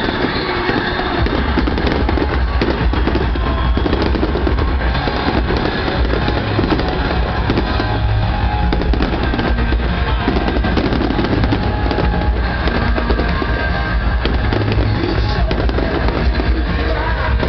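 Aerial fireworks shells bursting with many sharp bangs, over loud music with a deep, sustained bass line.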